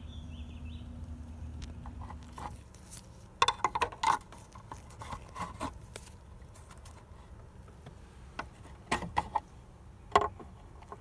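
Hard plastic clicking and rattling in short irregular clusters as a zip tie is worked through the side of a Ford F-150 dash cup holder. A low steady hum stops about two seconds in.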